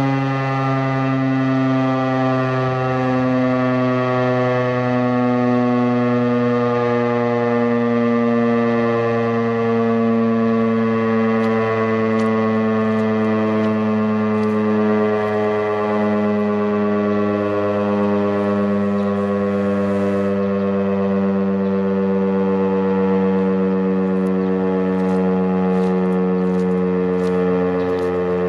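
Federal Signal STH-10 dual-tone fire siren sounding a loud, steady chord during a test, its pitch slowly falling throughout with a slight waver.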